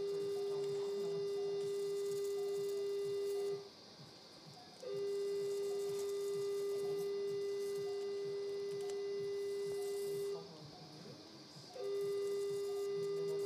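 Electrosurgical unit's steady activation tone as the monopolar cautery pencil cuts through muscle. It holds one even pitch for several seconds at a time and breaks off twice, briefly, where the pencil is released between cuts.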